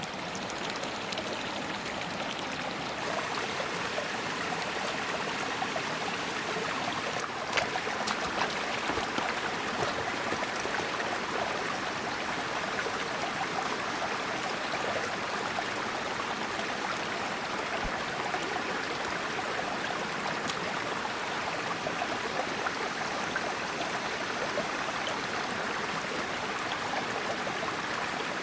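Steady rushing of flowing water, with a few faint clicks about seven to eight seconds in.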